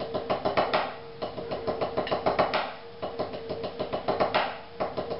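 Drumsticks played on a rubber practice pad: quick groups of sixteenth-note triplets, each phrase ending in an accented stroke. The phrase is repeated several times with short breaks about every second and a half.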